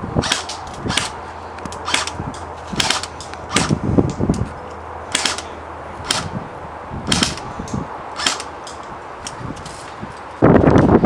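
Airsoft guns firing single shots: about a dozen sharp pops at irregular intervals. Near the end a sudden loud rush of wind noise on the microphone covers everything.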